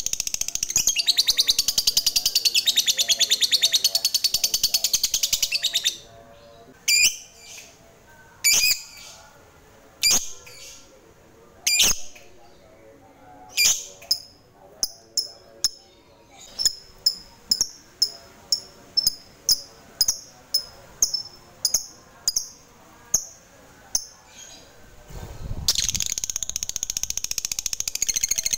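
Lovebird calling: a long, rapid, high chattering trill (the "ngekek"), then single sharp chirps that settle into a steady run of about two or three a second, and near the end another long rapid chatter.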